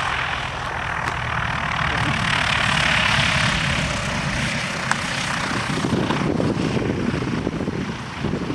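Single-engine light propeller plane running on the airstrip, a steady engine and propeller drone that swells about three seconds in, with one sharp click near the middle.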